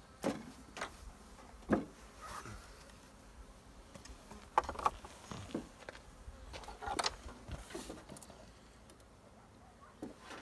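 Scattered light clicks and taps from handling a wooden hive frame fitted with a wax foundation sheet, about a dozen irregular knocks over a quiet background.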